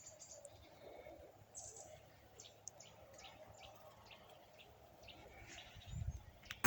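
Small birds giving short, high chirps, a dozen or so in quick irregular succession, faint. A low rumble builds near the end.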